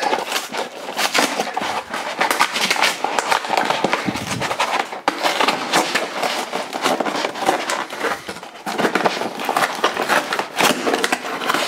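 Cardboard toy box being torn open by hand: a run of ripping and crackling cardboard noises with a couple of brief pauses.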